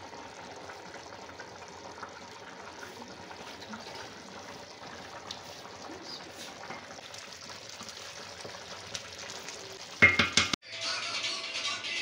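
A pot of vegetable pulao at a rolling boil: the rice and broth bubble with a steady hiss. About ten seconds in comes a brief loud clatter, and background music starts near the end.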